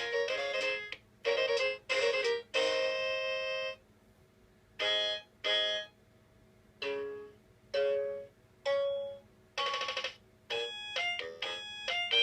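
Anpanman electronic toy keyboard playing its built-in demo tune in bright, beep-like electronic tones. The tune stops about four seconds in, a few separate notes follow with pauses between them, and a quick run of notes starts near the end.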